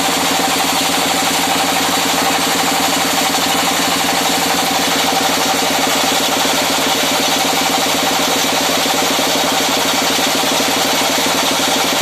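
Engine of a 25 kVA generator set running steadily, with a fast, even pulse to its note.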